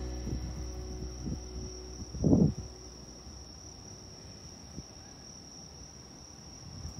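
Crickets trilling in one steady high note over a faint low rumble that slowly fades; a single dull low thump about two seconds in.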